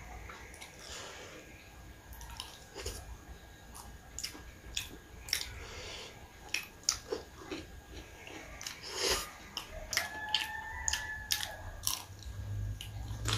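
Close-up eating sounds: biting and chewing food, with wet mouth clicks and smacks at an irregular pace.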